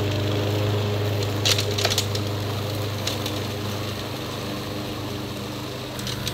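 Toro Recycler 22-inch push mower with gator blades running steadily while mulching dry leaves, with a few brief crackles of leaves and twigs being chopped about a second and a half in. The engine hum fades slightly as the mower moves away.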